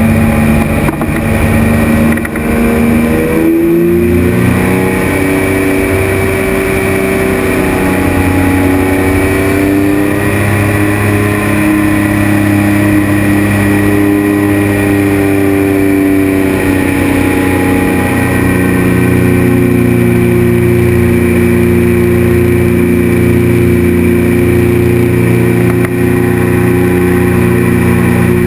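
Pusher engine and propeller of a Polaris flying inflatable boat in flight, running loud and steady. Its pitch drops a couple of seconds in, climbs back about four seconds in, wavers for a while and then holds level.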